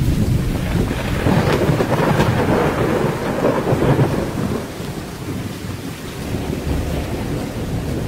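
Thunderstorm: a long roll of thunder over rain. It swells with a couple of sharp cracks in the first few seconds, then dies down.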